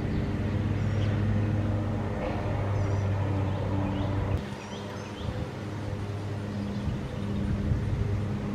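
A low, steady motor hum that drops away sharply about four seconds in and returns more faintly near the end, with short, high bird chirps scattered throughout.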